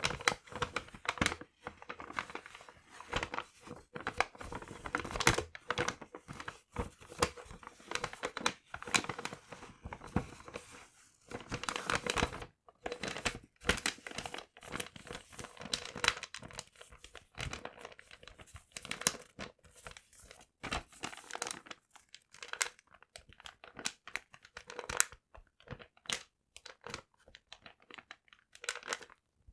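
Paper being crumpled and torn close to the microphone: dense, irregular crinkling and ripping with short pauses.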